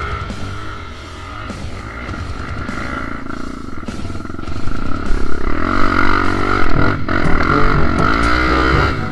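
Dirt bike engine revving up and down under background music, getting louder about halfway through.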